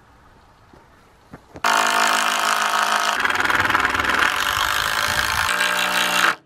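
Cordless drill driving a screw through a timber rail into a wooden fence post: a loud, steady motor whine that starts about one and a half seconds in, changes pitch twice as the screw goes in, and stops suddenly near the end.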